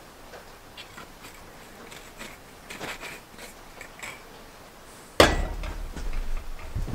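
Light clicks and taps of a glass bottle being handled, then a loud knock about five seconds in as the bottle is set down on a metal can on a wooden counter, with low thudding after it.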